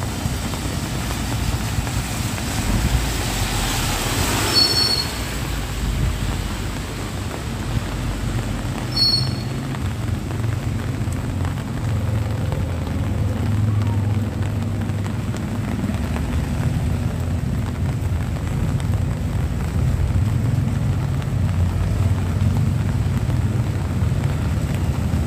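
A car drives past on wet asphalt, its tyres hissing as it swells up and fades about four seconds in, over a steady low rumble of street noise. Two brief high chirps sound about five and nine seconds in.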